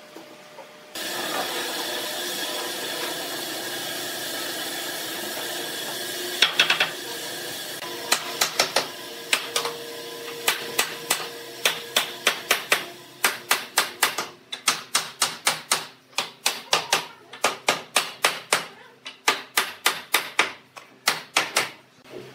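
Hammer knocking the glued joints of a pine frame together: sharp wooden knocks, scattered at first, then coming two or three a second. Before the knocking, a steady hum with faint tones runs for several seconds.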